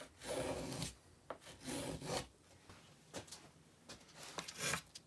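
A hand tool shaving and carving a wooden guitar brace in separate strokes, the first two longest and loudest, then a few fainter short strokes.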